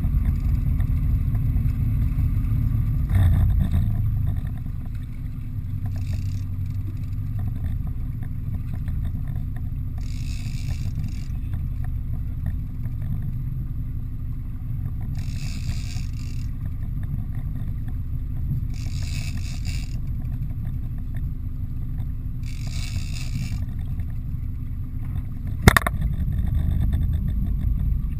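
Boat engine running with a steady low rumble. Every four seconds or so comes a short whirring burst as the big lever-drag reel is cranked while a hooked fish is pumped in, and there is one sharp knock near the end.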